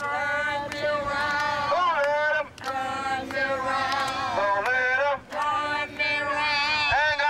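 Singing: a voice holding long notes in a slow melody, with short breaks between phrases.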